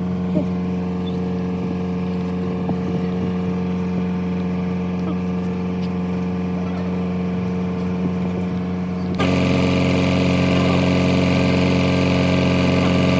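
Steady machine hum with a fixed pitch, like a running engine. About nine seconds in it cuts abruptly to a louder, hissier version.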